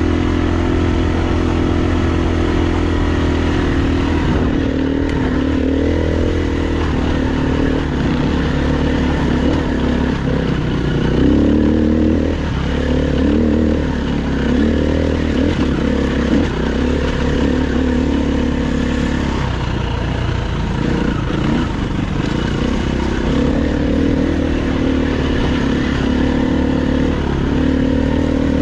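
KTM dirt bike engine running under changing throttle, its revs rising and falling.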